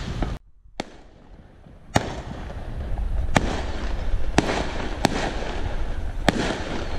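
Distant aerial fireworks going off. The sound drops out almost completely for a moment just after the start; from about two seconds in come five sharp bangs over about four seconds, with crackling and a low rumble between them.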